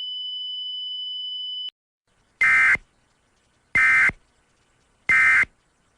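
A steady high-pitched tone that cuts off about two seconds in, then three short buzzy data bursts a little over a second apart: the Emergency Alert System's end-of-message SAME tones, which close an alert.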